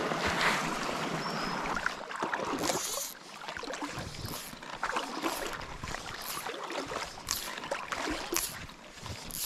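River water splashing and sloshing close by. There is a dense run of splashing for the first few seconds, then short irregular splashes.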